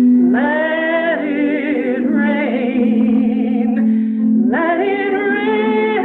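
A woman singing a worship song, holding long notes with wide vibrato and sliding up into a new phrase twice, near the start and about four and a half seconds in.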